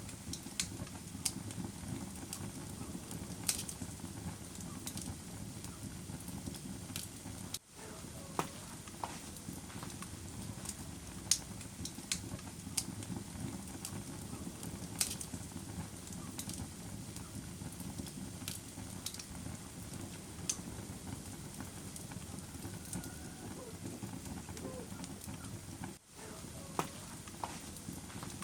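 Wood fire crackling in a fireplace: a steady low rumble of flame with irregular sharp pops and snaps, and a few faint brief hisses. The sound drops out for an instant twice.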